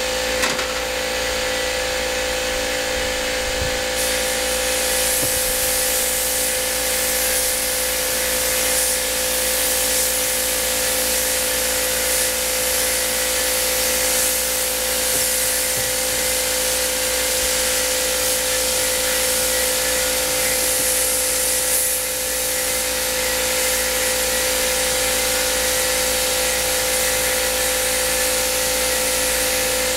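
Air compressor running with a steady, loud hum, under the hiss of a paint spray gun spraying a coat of paint; the spray hiss picks up about four seconds in.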